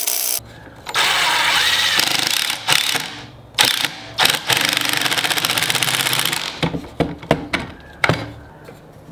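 Cordless impact driver driving fine-thread pocket screws through a long bit into cherry and maple frame pieces. It hammers in two runs of a couple of seconds each, with short bursts between them and a quick series of clicks near the end.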